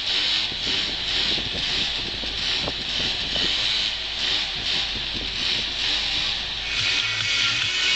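Scooter engine running steadily through a long wheelie, heard from a car driving alongside, with wind and road noise on top.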